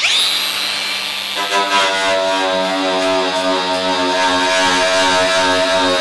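Cordless angle grinder starting up with a quick rising whine, then running steadily with a paint-stripping disc against the steel roof panel. A steady droning tone joins about a second and a half in.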